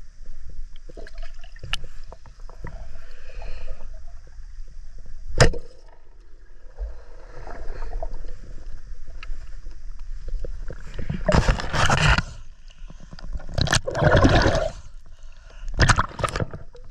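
Underwater sound through a diver's camera: a low rumble with scattered clicks and one sharp click about five seconds in. Later come loud bursts of rushing, gurgling water, around eleven and fourteen seconds in and more briefly near the end.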